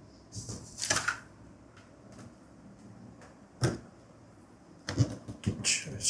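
Handling sounds as a part is fitted onto a drum vacuum cleaner: a short scraping rustle about a second in, then scattered knocks and clicks, and another scrape near the end. The vacuum motor is not running.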